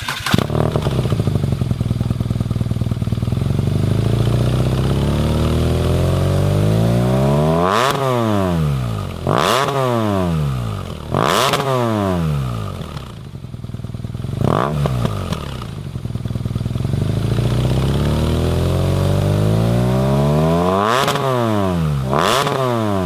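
BMW R nineT Urban G/S's 1170 cc air/oil-cooled boxer twin running through a Zard racing slip-on exhaust, revved while standing. The revs climb slowly to a peak, drop away, and come in several sharp blips. They then climb slowly to a second peak, with a last blip near the end.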